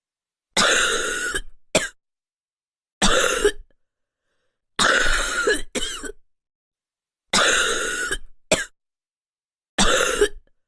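A child's wet, chesty cough: five separate coughs a couple of seconds apart, three of them followed by a short second cough. A wet cough like this, which feels as though a lot of phlegm could be brought up, is most often a sign of a common viral respiratory infection.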